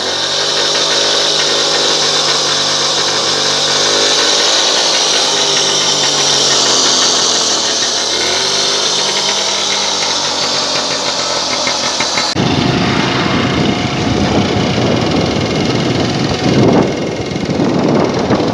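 Monet-Goyon Starlett 98 cc two-stroke engine running at standstill, its pitch rising and falling as it is revved and eased off. About two-thirds of the way through it cuts abruptly to road and wind rush as the scooter is ridden along.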